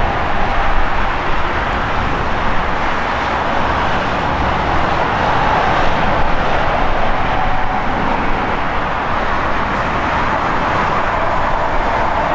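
Airbus A340-600's four Rolls-Royce Trent 500 turbofan engines on landing approach: a steady, loud jet rush with a faint whine as the airliner descends to the runway.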